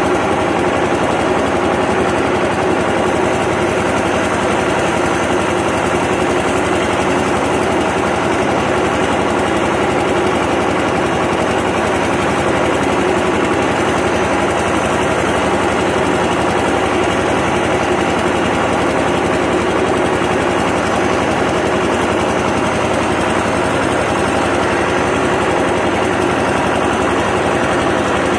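Ursus 1201 tractor's six-cylinder diesel engine running steadily under load as its front blade pushes hay.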